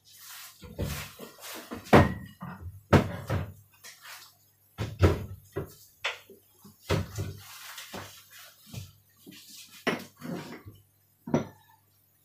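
About a dozen irregular knocks and thuds, roughly one a second, as things are handled and cupboards or doors are moved in a small kitchen.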